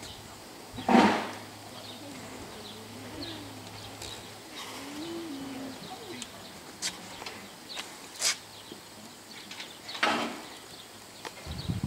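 Outdoor ambience with birds chirping and a faint wavering call, broken by two short loud scraping rustles, one about a second in and another near the end, plus a couple of sharp clicks.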